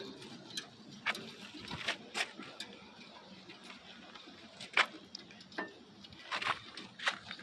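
Irregular light metallic clicks and knocks, about eight or nine of them spread unevenly, the loudest just under five seconds in: tools and brake parts being handled while new brake pads are fitted into the caliper.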